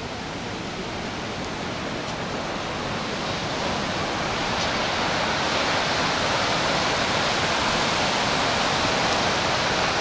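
Rushing river water: a steady, even rush that grows louder over the first half and then holds.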